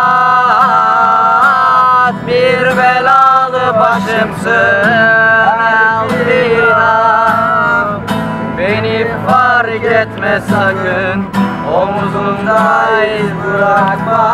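A man singing to a strummed acoustic guitar. His voice holds long notes for the first couple of seconds, then moves through shorter, sliding notes.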